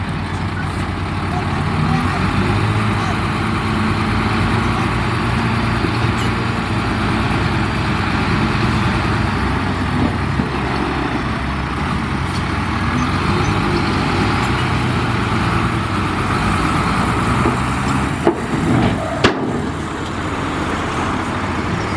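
Heavy construction machinery's diesel engine running steadily, with a few short sharp knocks about eighteen seconds in.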